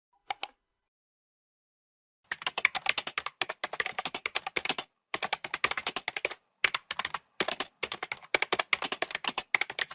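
A mouse button clicked twice in quick succession. About two seconds later, rapid typing on a computer keyboard runs in several bursts with short pauses between them.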